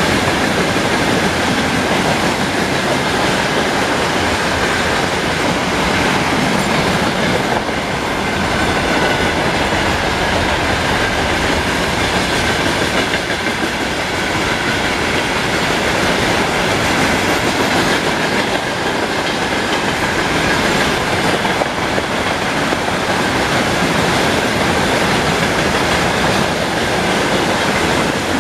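Freight train wagons rolling past steadily, their wheels clattering over the rail joints, with a faint high steady ringing from the wheels and rails.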